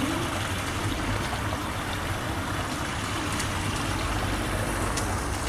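Snowmelt and rain runoff streaming over muddy ground into a storm drain grate: a steady rush of flowing water.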